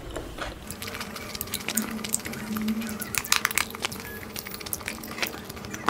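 Close-miked chewing of a mouthful of food, with wet mouth clicks and small crunches that grow busier in the second half. A short, low hummed "mm" comes about two seconds in.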